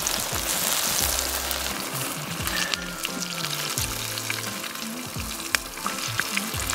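Breaded fish fillets frying in hot oil in a skillet, a steady sizzle with scattered pops. Background music plays low underneath.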